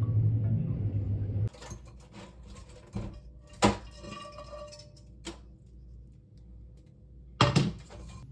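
Background music with mallet tones cuts off about a second and a half in. Then come a few scattered clinks and knocks of kitchen utensils and dishes being handled, the loudest near the end.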